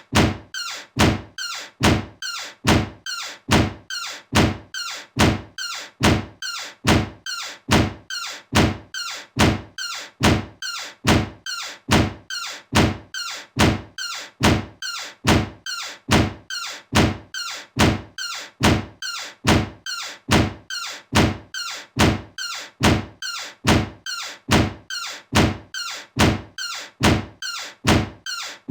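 A door closing with a thunk, the same closing sound repeated over and over at a steady, quick rhythm.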